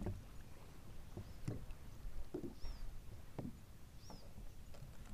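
Water softly slapping against a kayak's hull, with a few light knocks and two short high chirps.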